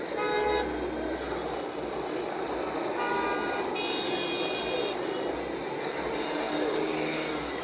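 City street ambience: steady road traffic with car horns tooting, one short honk near the start and more from about three to five seconds in, the last ones higher-pitched.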